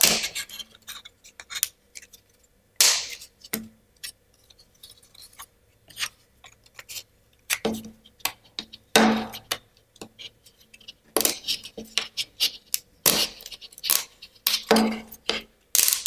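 Wooden parts of a Ugears Card Holder kit being pressed together and handled: irregular sharp clicks and knocks of wood on wood, with louder clusters about three seconds in and again from about nine to fifteen seconds.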